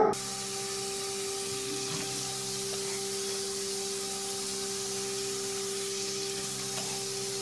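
Kitchen faucet running, a steady hiss of the water stream splashing into a stainless steel sink, with a steady hum beneath.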